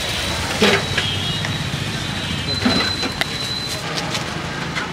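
Outdoor street background: a steady low traffic hum with voices, two short sharp knocks, and a thin high tone for about a second near the middle.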